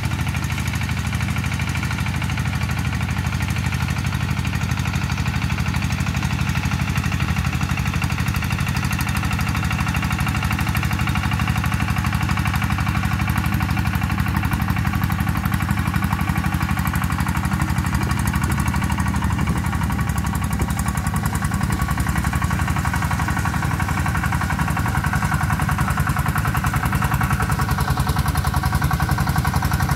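Single-cylinder diesel engine of a two-wheel walking tractor running steadily under load while dry-tilling a field.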